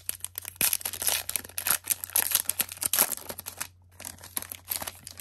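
Trading cards being handled close to the microphone: a dense run of crisp clicks and rustles for about three and a half seconds, a brief pause, then about another second of it.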